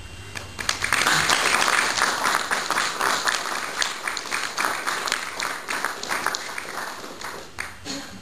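Audience applauding: many hands clapping, starting about half a second in, loudest in the first few seconds, then slowly dying away.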